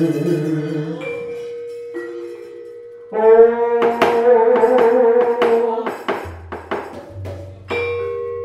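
Javanese gamelan accompaniment for wayang kulit: bronze metallophones and gongs struck with long ringing tones, a wavering held melody line over quick strikes in the middle, and a low gong tone coming in near the end.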